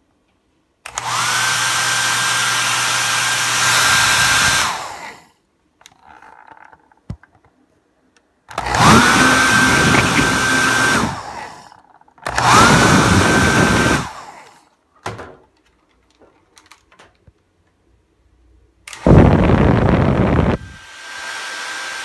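Panasonic hair dryer started up four times on high, each time the motor whine rising in pitch as it spins up to speed and then holding steady under the rush of air before it is switched off. The runs last about two to four seconds each, and the last one drops to a quieter level near the end.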